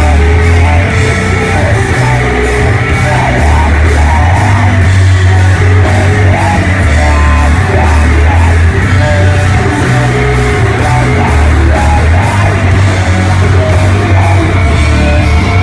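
Doom metal band playing live at high volume: heavy guitars and bass with drums and crashing cymbals, and yelled vocals over the top.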